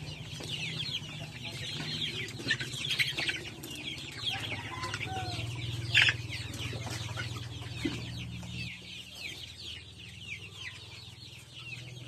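A flock of chickens clucking, many short overlapping calls at once, with one louder call about halfway through.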